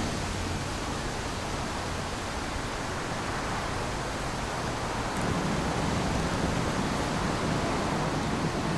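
Steady outdoor background hiss: an even wash of noise with no distinct events, a little fuller in the low end from about five seconds in.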